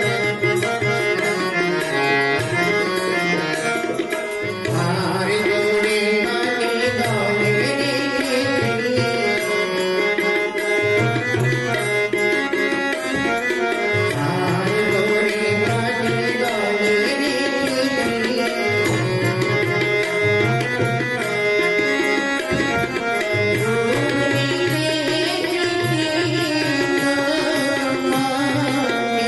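A devotional name-song sung by a voice with melodic glides over a steady tabla accompaniment.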